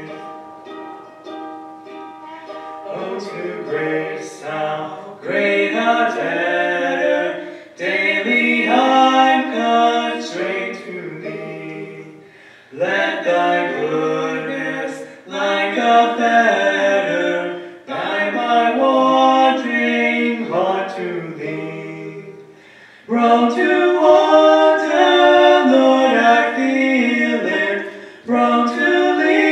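A woman and a man singing a worship song together, accompanied on ukulele, in phrases of a few seconds each.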